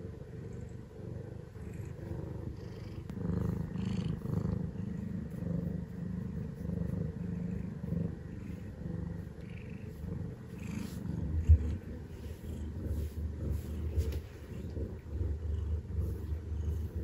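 Ragdoll cat purring steadily and continuously while being stroked.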